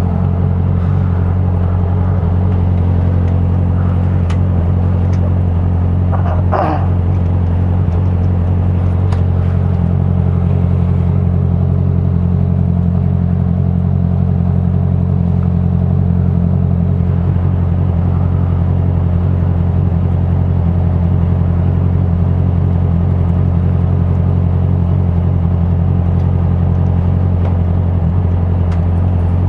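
Honda CBR650F's inline-four engine idling steadily, with a brief warbling squeak about six and a half seconds in.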